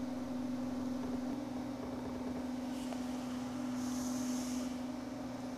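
A steady low hum with one constant tone, and faint brief hissy rustles about three and four seconds in.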